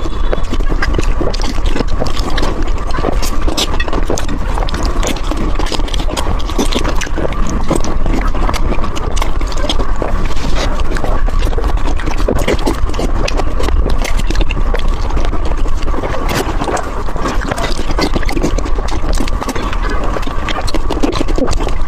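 Close-miked eating of saucy braised beef ribs: continuous wet chewing, lip smacks and sticky mouth clicks.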